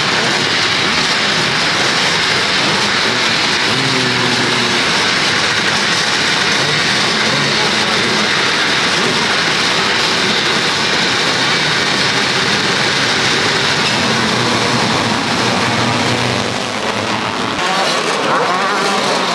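A whole field of classic motocross motorcycles running together at the start gate, a dense, unbroken mix of engine notes. The mix changes near the end.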